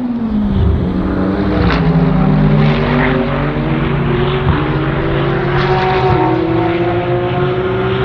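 BMW M4 GT3's twin-turbo straight-six race engine under acceleration. Its pitch sags briefly in the first second, then climbs steadily, dipping slightly at each upshift about halfway through and again a little later.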